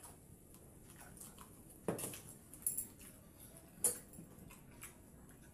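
Quiet sounds of eating pakhala (water-soaked rice) and prawn curry by hand from steel bowls: chewing and slurping, with a few sharp clicks and knocks of steel dishes on the table, the loudest about two seconds in and another just before four seconds.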